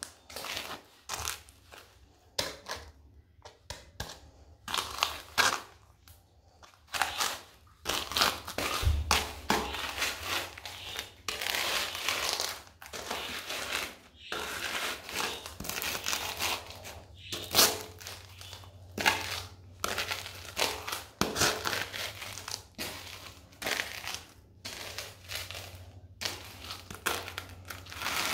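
Pretzels crunching and crackling as they are crushed and ground under cork-wedge sandal soles, in a run of irregular crunches, sparse at first and then coming thick and fast.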